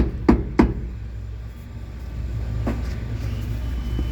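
An engine idling with a steady low rumble. Three quick sharp knocks come at the start, and another about two and a half seconds in.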